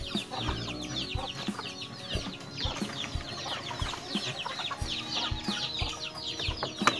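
Chickens clucking and chirping, many quick high chirps overlapping, with soft low thumps about once or twice a second.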